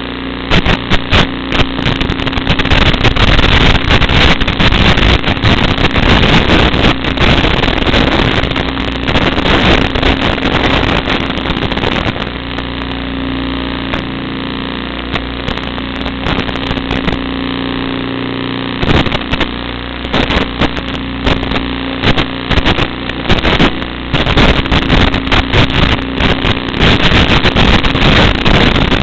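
Small FPV quadcopter's motors and propellers buzzing in flight, with gusty wind rush over the microphone and the sound surging with the throttle. It is steadier and a little quieter for several seconds around the middle.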